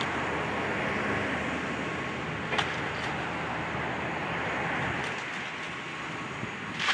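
A demolition excavator's diesel engine running steadily under a broad hiss of working noise, with one sharp crack about two and a half seconds in. The low rumble eases a little near the end.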